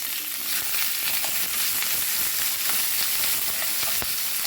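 Green chillies and curry leaves sizzling in a little hot oil with ginger-garlic paste in a pan, with scattered faint crackles and a light knock near the end.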